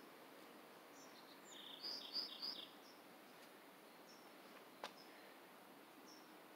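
Quiet outdoor ambience with a small bird chirping a quick run of three or four high notes about two seconds in, and fainter single chirps now and then. A single sharp click about five seconds in.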